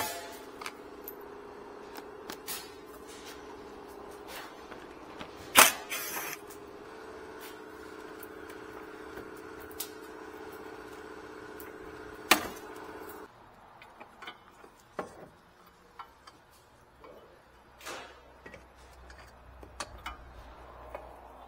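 Sharp clicks and knocks of a plastic undertray and its fasteners being worked loose and pulled off, the loudest around five to six seconds in and again past twelve seconds. A steady mechanical hum runs underneath and stops about thirteen seconds in, after which only fainter scattered clicks remain.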